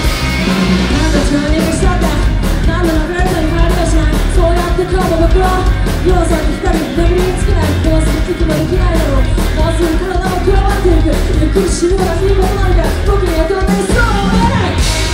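Live rock band playing: a sung melody over electric guitar and drums, the voice coming in about a second in.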